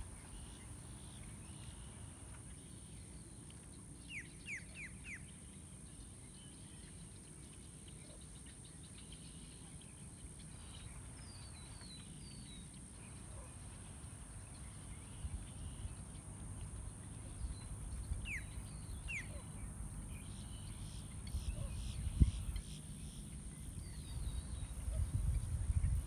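Birds calling outdoors: a quick run of four falling whistled notes about four seconds in, faint chirps, and two more falling notes later. A steady high-pitched tone runs underneath, and a low rumble grows louder towards the end, with a single thump near the end.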